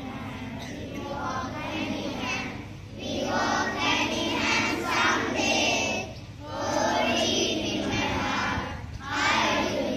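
A small group of children singing together into a microphone, in phrases broken by short pauses, softer for the first few seconds.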